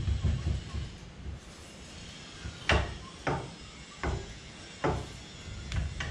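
Piston rod of a rebuilt wool press hydraulic ram being worked by hand inside its cylinder: a low rumble at first, then five sharp knocks, roughly one a second, in the second half.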